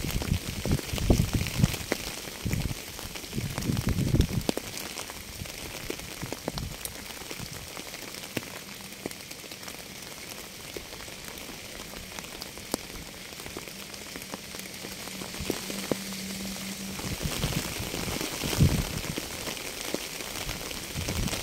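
Steady rainfall with scattered individual drop hits, heavier and lower-rumbling in the first four seconds and again in the last few seconds. A faint steady low tone runs through the middle.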